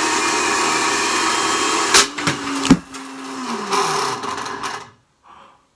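Countertop blender motor running at full speed with the lid off, then two sharp cracks about two seconds in as a phone dropped into the jug is struck by the spinning blades. The motor falls in pitch and winds down shortly after. Brief gasps near the end.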